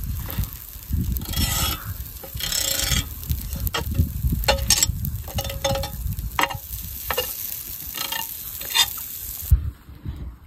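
Outdoor cooking over embers: a steady sizzle with scattered scrapes and light clinks of utensils. The sizzle cuts off suddenly near the end, with a low rumble of wind on the microphone throughout.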